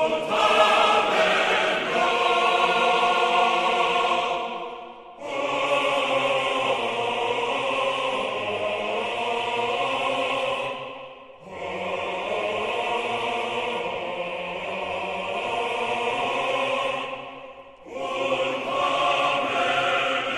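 Sacred choral music: a choir singing long held chords in phrases of about five to six seconds, with short pauses between phrases.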